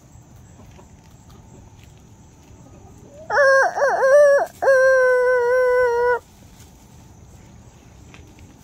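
Rooster crowing once, about three seconds in: a wavering first part, a brief break, then a long held final note that sags slightly in pitch.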